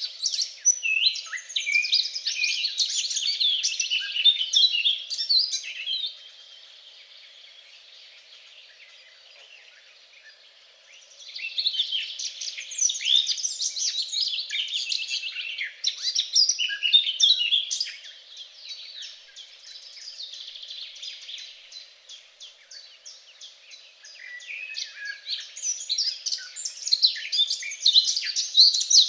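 Several songbirds singing: quick, high chirps and trills coming in busy stretches. The song stops for about five seconds after six seconds, then starts again and grows busier towards the end.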